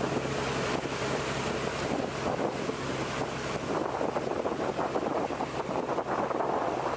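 Wooden long-tail boat's engine running steadily under way, a constant low hum beneath wind buffeting the microphone and water rushing past the hull.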